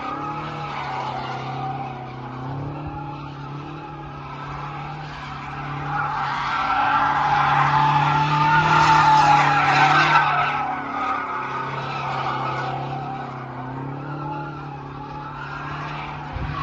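BMW F10 M5's twin-turbo V8 running under power while the rear tyres squeal in a sustained drift. The tyre squeal wavers in pitch and swells loudest about halfway through.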